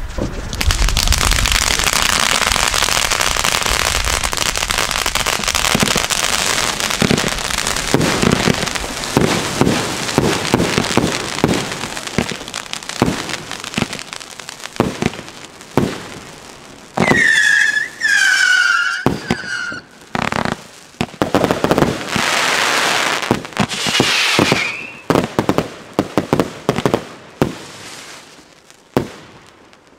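Firework battery firing: a dense, continuous crackling of crackling stars for the first dozen seconds, punctuated by sharp launch pops and bursts. About halfway through come a few short whistles. The shots then grow sparser and fade out near the end.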